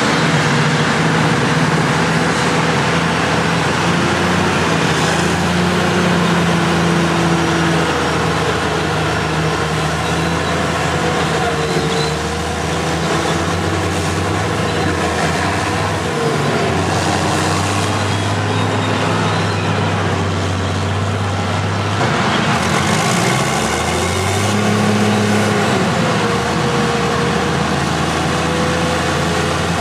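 Diesel engine of a Caterpillar motor grader running as it works past close by, over the sound of other heavy earthmoving machines. The engine note shifts up and down a few times, most clearly about 23 to 25 seconds in.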